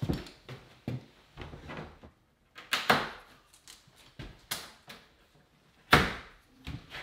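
Scattered knocks, clicks and clatter of a pre-hung wooden door being handled and fitted into its rough opening, with one sharp knock loudest about six seconds in.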